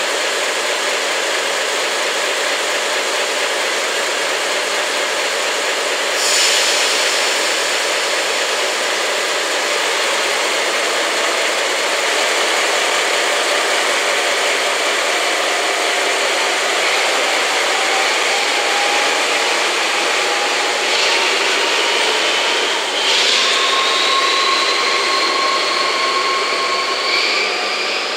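DE10 diesel-hydraulic locomotive's V12 diesel engine growling loudly under throttle as it pulls away. There is a brief loud surge about six seconds in, and over the last ten seconds a whine rises steadily in pitch as it gathers speed.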